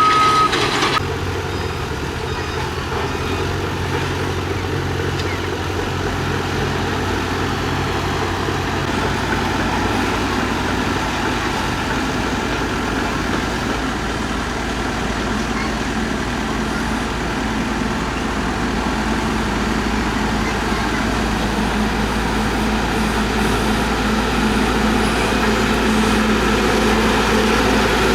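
Diesel engine of a heavy earthmoving machine running steadily under work, with a reversing alarm beeping for about the first second before it stops.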